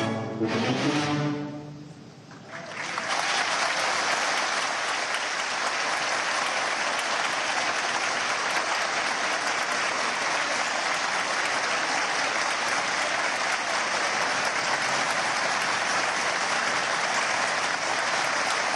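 An orchestra's closing chord rings and dies away, then the audience breaks into steady applause about three seconds in, which carries on.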